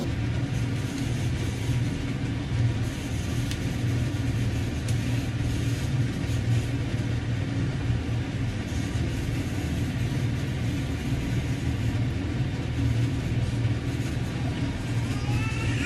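A steady low machine hum with an even hiss over it, constant throughout with no rhythm.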